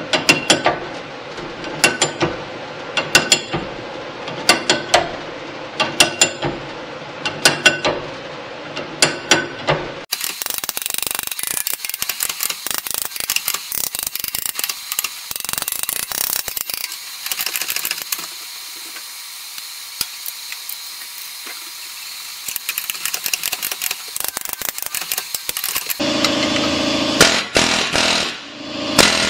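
Air hammer rattling against steel while a seized bushing is driven out of a Corvair front upper control arm, first in a hydraulic press and then with a chisel bit, the arm held in a vise. Before that come groups of sharp metallic clicks about every second and a half. The bushing will not press out.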